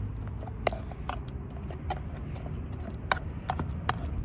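Open wood fire crackling: sharp, irregular snaps every half second or so over a low, steady rumble.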